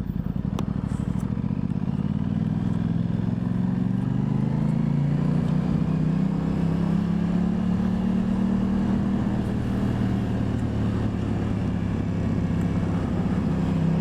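Aprilia Tuono 660's parallel-twin engine pulling under acceleration, its pitch rising over the first six seconds or so, then holding fairly steady.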